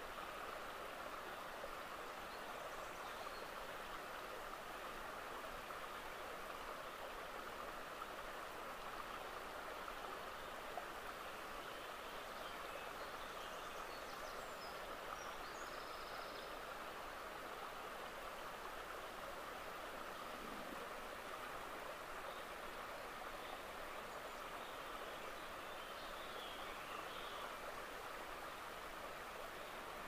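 Faint, steady rush of flowing water, with a few faint high chirps about halfway through and again near the end.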